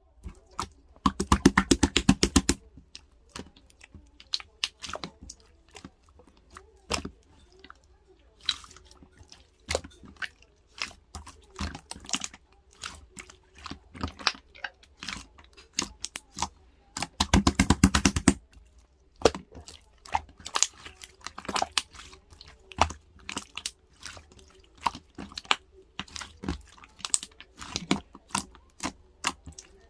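Pink two-layer slime worked by hand, giving scattered sharp clicks and pops, with two runs of rapid crackling pops, one near the start and one about halfway through.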